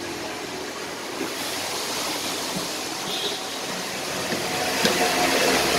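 A steady rushing noise throughout. Near the end, a cordless drill starts to whir against the plastic evaporator housing.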